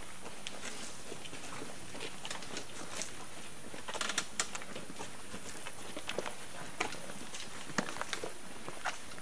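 Scattered footsteps and shuffling of a group of people moving slowly, with irregular sharp scuffs and clicks, a small cluster of them about four seconds in, over a steady faint hiss.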